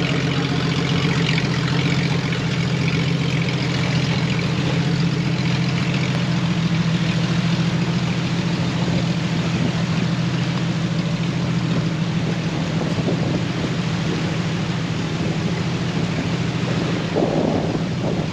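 Jeep engine running steadily at low revs, an even engine hum with no revving, while the Jeep crawls through deep water.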